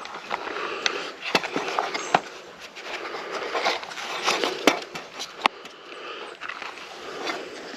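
Handling of a cardboard product box and its contents: irregular rustling, scraping and small clicks as the box is opened and the items are taken out.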